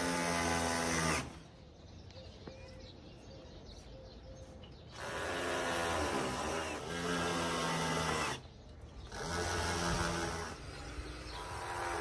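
Cordless drill driving into a wooden frame beam, running in several separate bursts, the longest about three seconds, with its pitch dipping briefly partway through.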